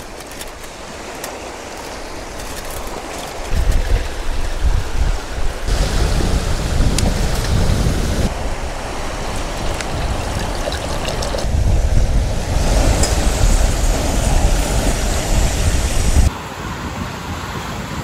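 Gusty wind buffeting the microphone over waves breaking on a rocky lakeshore, the gusts coming and going. Near the end it cuts to a quieter, steadier sound.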